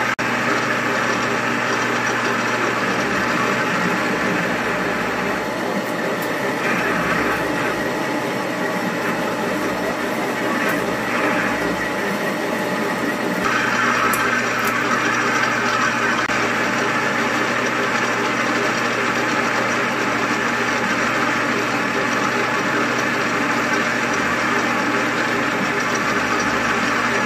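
Metal lathe running steadily while a twist drill held in the tailstock bores into the spinning metal workpiece. The sound changes about halfway through, and near the end a 5/8-inch end mill is cutting in the bore.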